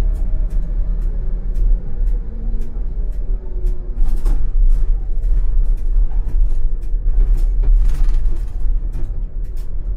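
ČKD Tatra T6A5 tram running along the track, heard from the driver's cab: a steady low rumble with frequent sharp clicks and a faint hum.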